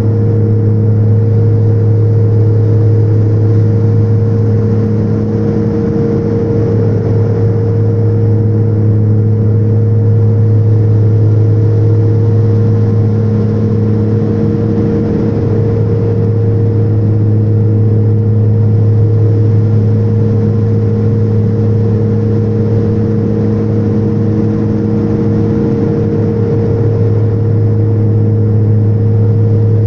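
Steady drone of a turboprop airliner in flight heard from inside the cabin: a strong low propeller hum with a few steady higher tones above it, over a constant rush of engine and air noise.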